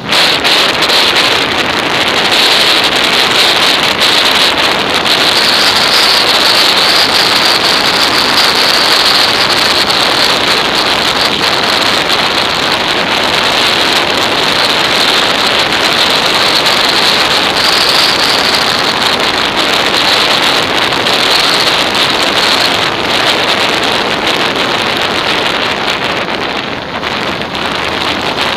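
Steady rush of wind on a motorcycle-mounted action camera's microphone, mixed with the noise of the moving motorcycle and its tyres on the road. It dips slightly near the end.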